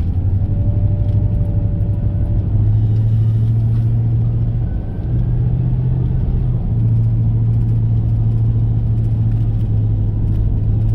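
Car engine and road noise heard from inside the cabin while driving: a steady low drone that shifts slightly in pitch twice.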